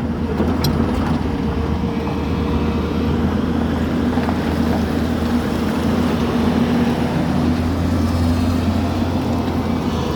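Excavator's diesel engine running steadily, a low drone with no change in speed.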